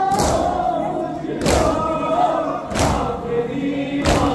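Men's voices chanting a noha together, cut by the crowd's hands striking their chests in unison (matam) about every 1.3 seconds.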